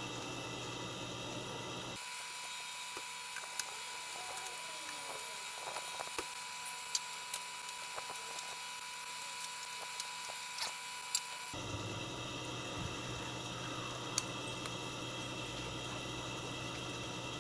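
Faint, scattered small clicks and taps of a headset's plastic inline volume-control housing being handled and opened, over a steady hiss.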